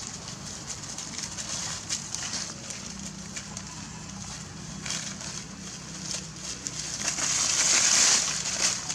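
Dry fallen leaves crackling and rustling as monkeys scamper and scuffle over the leaf litter, with a louder, longer rustle about seven to eight seconds in.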